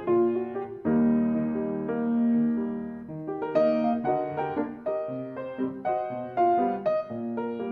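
Background piano music: a gentle piano piece, with notes coming faster from about three seconds in.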